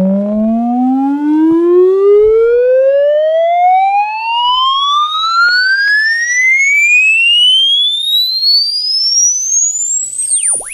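Test-tone frequency sweep played from a cassette through the Toshiba RT-8930S boombox's speakers. A single pure tone climbs steadily from low bass to a high whistle, with fainter overtones above it.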